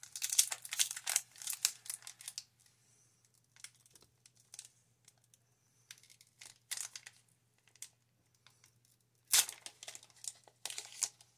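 Foil booster-pack wrapper of a Pokémon trading card pack being crinkled and torn open by hand: crackly crinkling for the first couple of seconds, faint rustles, then louder tearing near the end.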